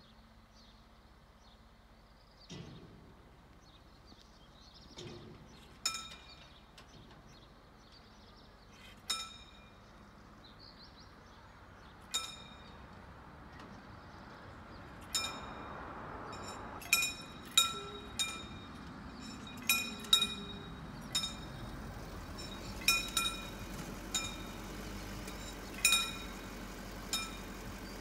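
Level-crossing warning bell striking single metallic dings, a few seconds apart at first, then more often from about halfway through. A low rumble builds beneath the dings from about halfway.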